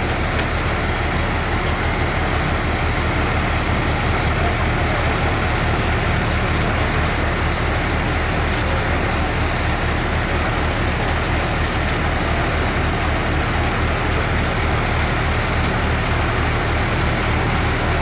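An engine running steadily at idle: a low, even drone that holds level throughout, with a few faint ticks over it.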